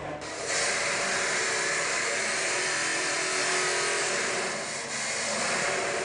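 Steady machine noise, a loud hiss with a faint hum underneath. It starts about half a second in and dies down near the end.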